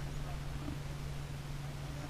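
Lifted Jeep Liberty's engine running low and steady with a constant low hum, the vehicle barely moving on the rocks.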